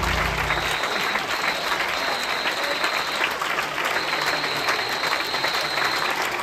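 Theatre audience applauding steadily for the performers' curtain call: a dense, even mass of clapping. A low tail of music fades out in the first second.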